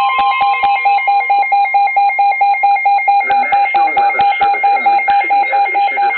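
Weather radio alert beeping: a rapid electronic beep about five times a second, marking an incoming warning. A steady alert tone underneath stops about a second in, and a voice starts reading the next warning over the beeps about three seconds in.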